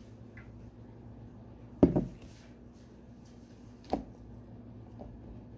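Two hard knocks about two seconds apart, the first louder, as a blender jar full of puréed tomatoes is handled and set down on the countertop, over a low steady hum.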